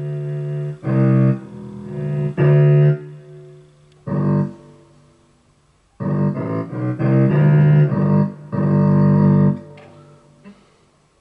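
Electric guitar played through a guitar synthesizer set to an orchestral voice, giving smooth held notes: one long note, then several short phrases of sustained notes that die away near the end.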